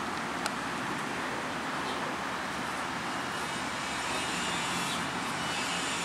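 Steady hum of city road traffic.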